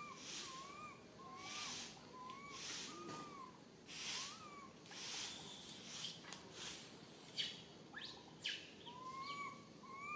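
Repeated short arched animal calls, about two a second, that break off in the middle and come back near the end, over bursts of high hissy buzzing that are loudest about two-thirds of the way through.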